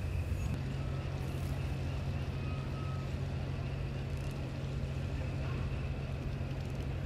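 A steady low engine hum, unchanging throughout, with a faint steady high whine above it.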